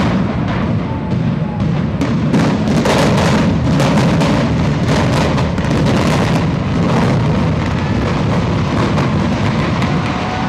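Building implosion: a rapid string of demolition charges going off as sharp booms for several seconds, then the low rumble of the high-rise collapsing.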